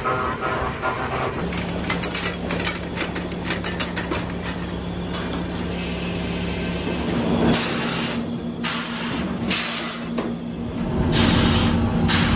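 Sawmill machinery running under a steady low hum, with a stretch of rapid rattling and clattering in the first few seconds, then several short bursts of hissing, and a louder low rumble near the end as the log moves through the mill.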